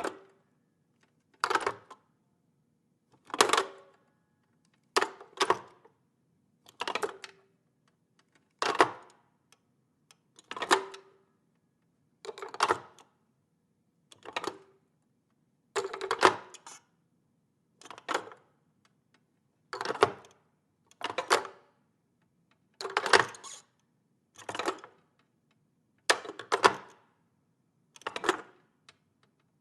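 Corded telephone handset hung up onto its cradle again and again, a sharp plastic clack about every two seconds, some landing as a quick double clack.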